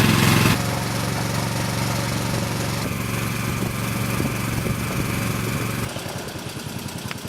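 Boat motor running steadily as the boat travels upstream. It drops in level about half a second in and again near six seconds, where a rapid even pulsing comes through.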